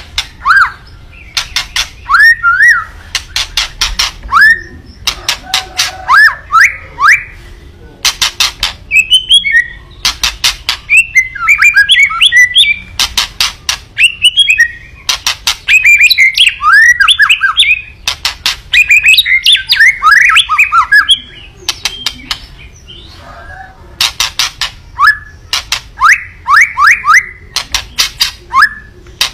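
White-rumped shama (murai batu) singing in an agitated 'kretekan' display. Trains of fast, dry rattling clicks alternate with short rising whistled notes and bursts of rapid warbling, with a quieter pause a little past the middle.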